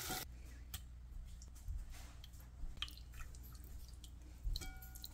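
Wooden spoon stirring yogurt into cooked bottle gourd in a bowl: faint wet squishing with a few light taps of the spoon.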